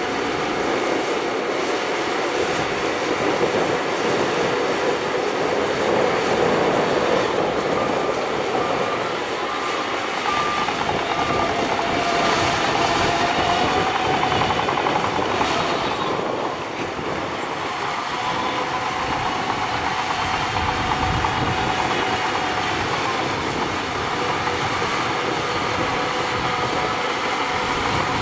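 Shantui crawler bulldozer working: its diesel engine runs steadily under the continuous clatter of its steel tracks, with thin high squeals from the tracks now and then.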